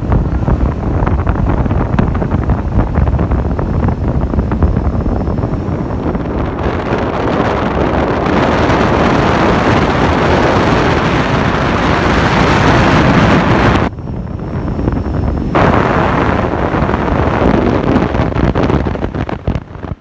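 Strong wind buffeting the microphone, a loud steady rush and rumble that drops away suddenly about 14 seconds in and then resumes.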